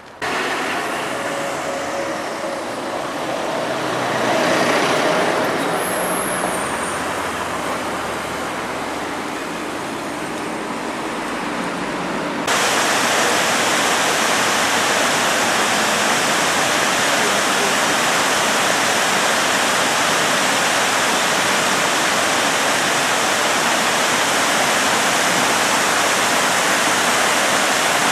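Road traffic, with one vehicle passing closer about four seconds in. Then, after a sudden cut just before the middle, the louder steady rush of the River Avon pouring over Pulteney Weir.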